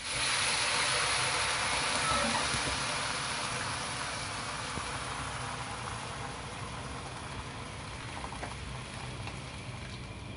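Hot water poured from an electric kettle into a hot wok that was just stir-frying, a steady rushing hiss as it hits the hot metal and food. It starts suddenly, is loudest at first and slowly dies down as the wok fills.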